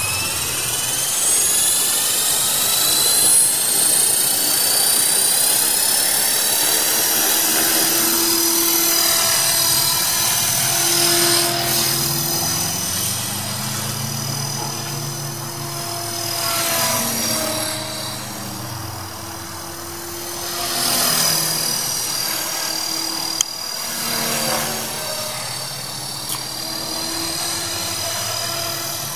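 Electric RC helicopter, an HK450 V2 (T-Rex 450 clone) with a Turnigy SK3 2839 3600KV brushless motor: the high motor whine rises as the rotor spools up, then the whine and rotor blade noise go on steadily, rising and falling in pitch as it flies about. A single sharp click sounds near the end.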